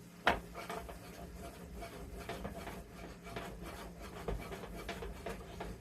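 Kitchen utensil working cooked shrimp in a pan: one sharp knock, then a run of light scrapes and clicks against the pan over a steady low hum.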